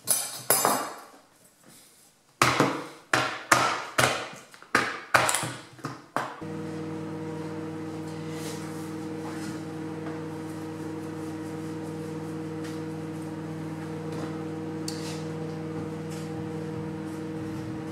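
A fork jabbing through the plastic film lid of a ready-meal tray, about eight sharp knocks in quick succession. Then, about six seconds in, a microwave oven starts running with a steady, even hum.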